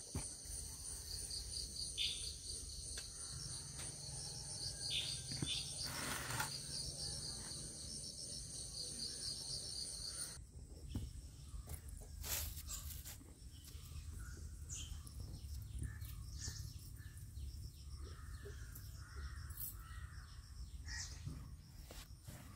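Outdoor rural ambience: a steady high-pitched insect chirring for the first ten seconds that stops abruptly, with scattered short bird calls throughout.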